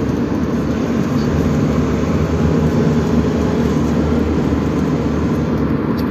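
Steady low rumble of road and wind noise inside a moving vehicle travelling at speed.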